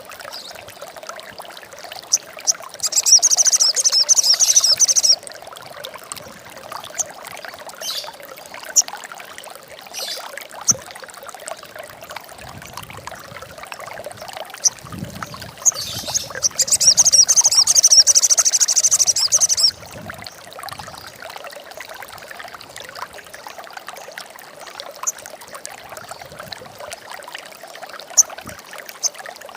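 A sogon bird giving two long bursts of rapid, high chattering trill, one about three seconds in lasting about two seconds and a longer one of about three seconds past the middle, with short single chips between. Steady trickling water runs underneath.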